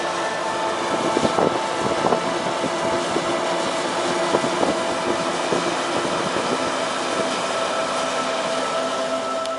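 Geothermal steam vent (fumarole) hissing steadily as a strong jet of steam blows out of the ground.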